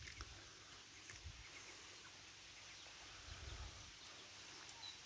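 Near silence: faint outdoor background with a few soft low thuds.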